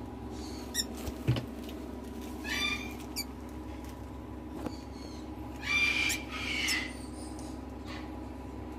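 Newly hatched blue-eyed cockatoo chick giving three short, high begging calls, one about two and a half seconds in and two close together near six seconds, over a steady low hum.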